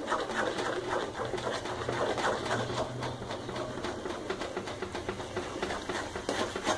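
A spatula stirring besan in hot ghee and milk in a metal kadhai, making a steady run of quick soft scrapes and ticks. The flour is kept moving at the start of roasting so no lumps form.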